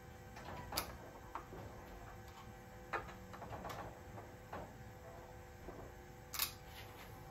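A series of light clicks and knocks as a hand works on the CNC router's mount during tramming, the sharpest about a second in and near the end, over a faint steady hum.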